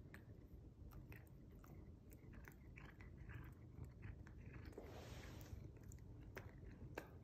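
Cats chewing and biting treats: faint, irregular clicks of bites and chews over a low, steady purr.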